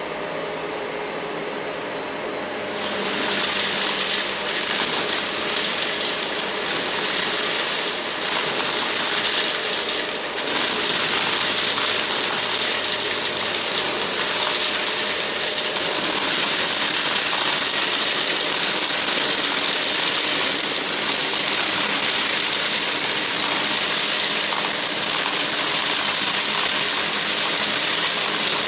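Upright bagless vacuum cleaner running over carpet. About three seconds in its sound jumps louder and hissier as the head starts sucking up scattered confetti, which goes up crunchy and steady from then on.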